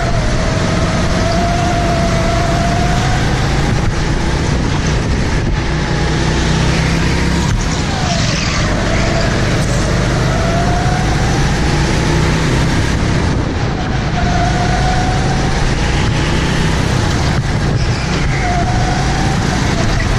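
Indoor go-kart engine running hard, heard onboard, its pitch rising and falling with the throttle through the corners over a dense, steady rumble.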